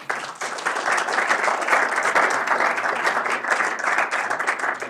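Audience applauding: many hands clapping together, starting abruptly.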